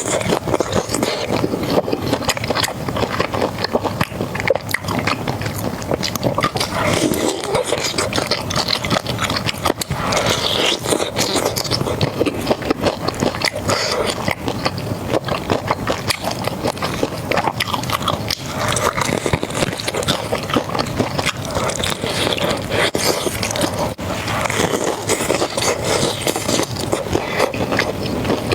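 Close-miked eating sounds: crunching and chewing of crispy fried pork, a dense, continuous run of crackling bites.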